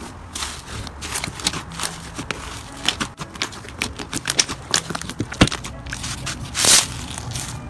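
Slime being squished and poked by hand, giving a run of irregular crackling, popping clicks, with a louder, longer squelch shortly before the end.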